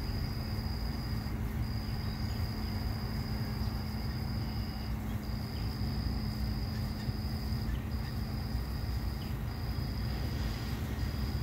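Steady low outdoor rumble with a constant hum, and a thin high whine above it that breaks off briefly every second or two.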